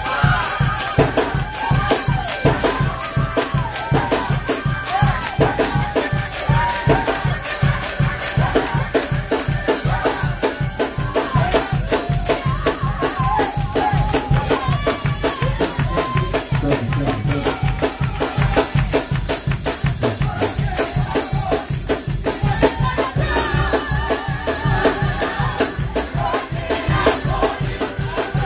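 Live gospel church music: a band playing a fast, driving beat on drums and hand percussion, with a melody line sliding up and down above it.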